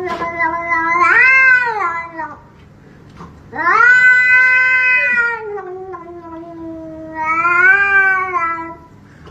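A cat yowling in long, drawn-out calls, each lasting a couple of seconds or more and rising and falling in pitch, with short pauses between them.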